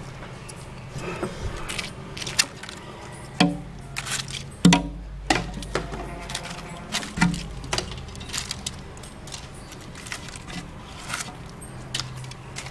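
Irregular clicks, taps and knocks, with a few short low creaks, as of objects being handled and moved about.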